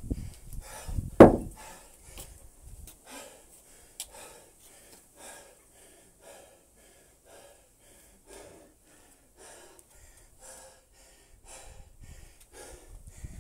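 A kettlebell is dropped onto concrete paving with one heavy thump about a second in, then a man pants hard, about two breaths a second, out of breath from kettlebell snatches.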